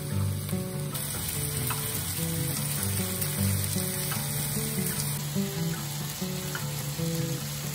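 Pork-wrapped enoki mushroom bundles sizzling steadily as they fry in sesame oil in a pan, with background music.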